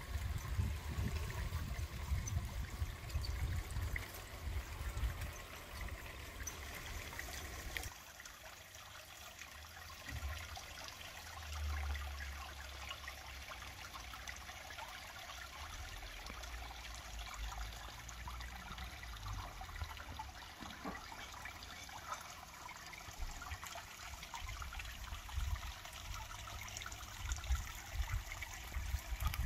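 Water trickling steadily, as from a garden pond. A low rumble sits under it for about the first eight seconds and then drops away.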